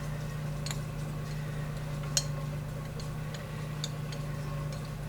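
A few light, scattered clicks and taps of kitchen utensils against dishes, the loudest about two seconds in, over a steady low hum.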